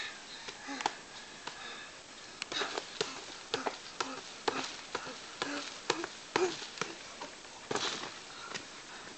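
Punches landing in an irregular series of sharp slaps, about a dozen, roughly one to two a second.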